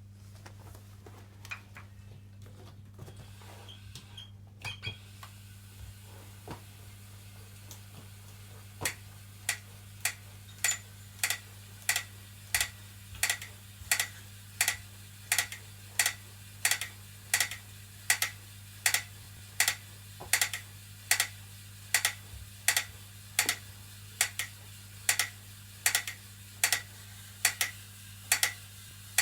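New BTM spin bike clicking as the pedals turn, a fault that appeared after one workout: sharp, evenly spaced clicks, slightly under two a second, starting about nine seconds in. A steady low hum runs underneath.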